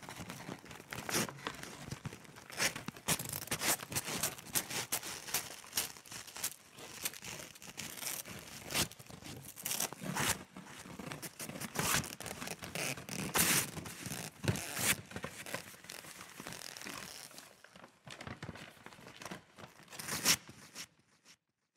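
Paper being torn and crumpled: an irregular run of ripping, crinkling and scraping noises that stops about a second before the end.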